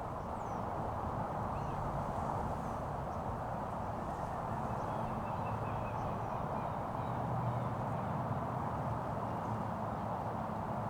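Steady ambient background noise with a low rumble, picked up by a Tascam DR-10SG camera-mounted shotgun mic recorder, with a few faint high chirps here and there.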